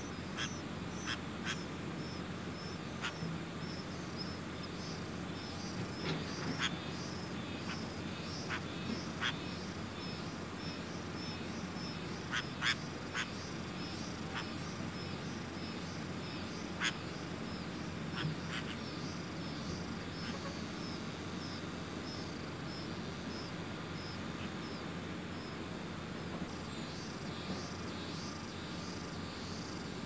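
Nestling songbirds giving short, sharp begging calls now and then as they gape for food from a parent, over a steady, even chirping of insects.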